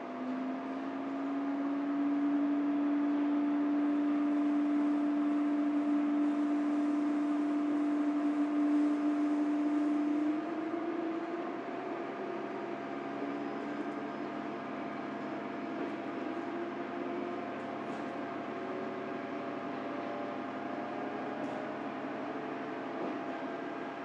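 Diesel railcar accelerating away from the station, heard from inside the cabin. The engine drone rises slowly in pitch for about ten seconds, then eases off and drops in level, leaving a steadier, quieter running noise.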